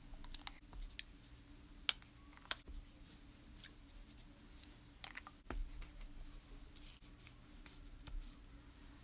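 Felt dauber of a distress stain bottle being dabbed and rubbed on journal paper, faint and scratchy, with a few sharp clicks as the bottles are picked up and handled, two of them close together about two seconds in.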